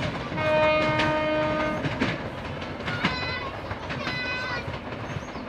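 Express train passing at speed, its wheels clattering over the rail joints. A long horn blast sounds about half a second in and lasts over a second, with shorter high tones a little later.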